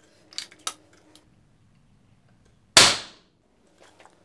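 Airgun Technology Uragan Compact .177 PCP air rifle's action releasing once with a sharp crack about three seconds in, set off by a digital trigger-pull gauge pulling the trigger. A few light clicks of the gauge and rifle being handled come before it.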